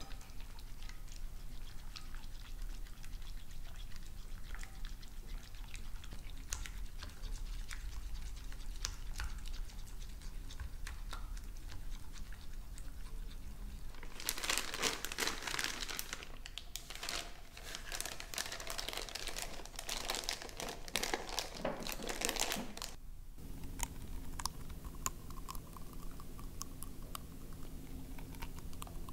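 Kitchen food-preparation sounds: faint scattered clicks at first, then from about halfway in, several seconds of loud crinkling and rustling, followed by a steady low hum.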